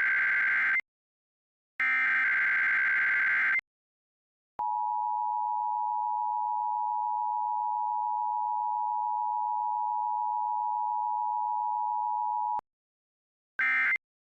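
Emergency Alert System test tones: the end of one burst of screechy digital data and a second full burst in the first few seconds, then the steady two-tone attention signal held for about eight seconds, then a short data blip near the end.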